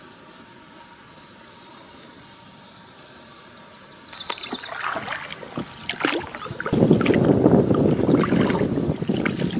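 Water splashing and sloshing close to a small boat on a river. It starts about four seconds in, grows louder and busier, and cuts off abruptly at the end.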